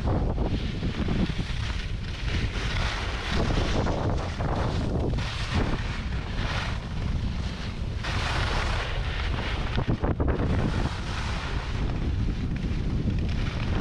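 Wind buffeting the microphone at about 30 to 50 km/h down a ski slope, a steady low rumble. Over it comes the hiss and scrape of edges carving groomed snow, surging every couple of seconds with each turn.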